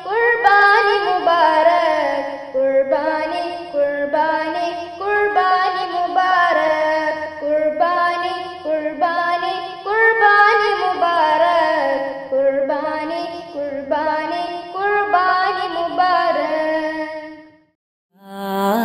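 A solo voice singing an Urdu Eid naat with no instruments, over a faint steady low hum. The singing stops about a second before the end.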